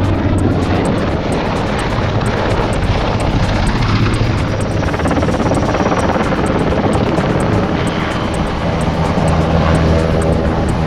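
Military helicopter flying past low, its turbines and rotor making a loud, steady sound with a fast, regular rotor beat.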